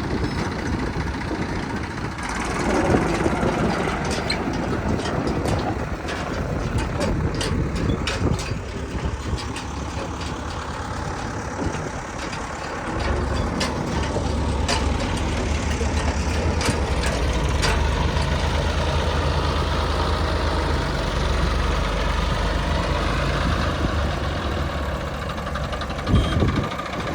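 Engine of heavy machinery running, a deep drone that grows stronger about halfway through, with scattered sharp clicks and knocks over the first two-thirds.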